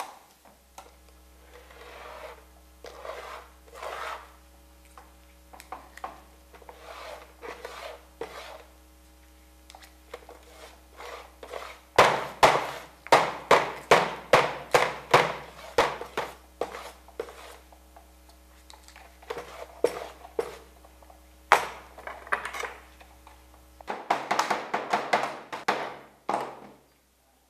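Workshop hand-tool sounds: softer repeated strokes about once a second, then a fast run of loud, sharp strikes about three a second beginning about twelve seconds in. A steady low hum lies underneath and stops shortly before a last quick flurry of strikes near the end.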